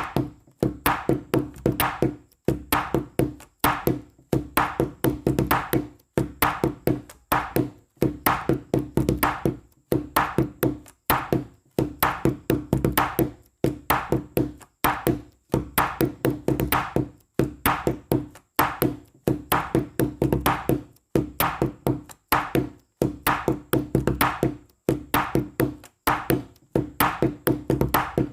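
Background music with a steady, quick percussive beat of tapping, wood-block-like strikes over a pitched line.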